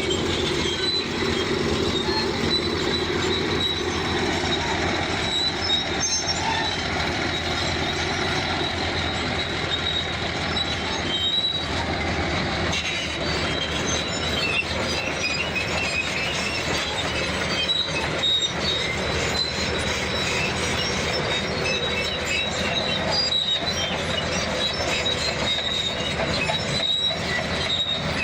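Bulldozer at work, its steel crawler tracks giving a continuous high squeal over the steady running of the machine.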